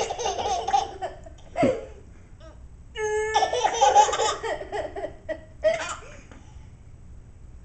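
A baby belly-laughing in hearty bursts: one long bout right at the start and another about three seconds in, with a few short bursts in between and after.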